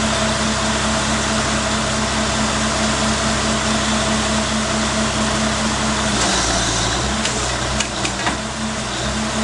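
Geothermal drilling rig's engine running steadily. Its note drops and changes about six seconds in, then comes back, with a few sharp metallic knocks around eight seconds in.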